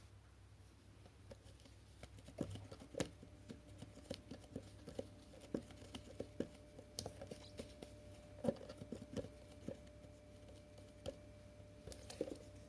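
Light, irregular clicks and taps of the plastic parts of a cordless stick vacuum being handled, starting about two seconds in, with a few sharper knocks among them.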